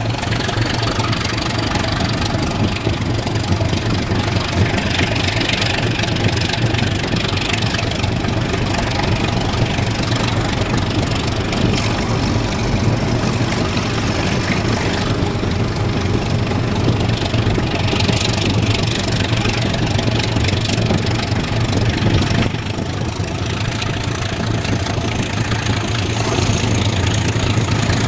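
Locomotive engine running steadily with rolling wheel and rail noise, heard from an open window of a slowly moving train.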